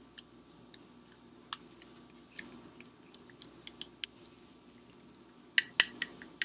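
Faint scattered ticks and small clicks as black bean sauce is poured from a small glass bowl over noodles, then a few sharp ringing clinks of the glass bowl against the plate near the end.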